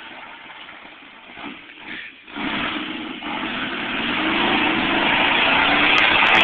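A 4x4 pickup truck's engine running as it drives through snow, quiet at first, then growing steadily louder from a couple of seconds in, with its pitch rising as it revs up and comes closer.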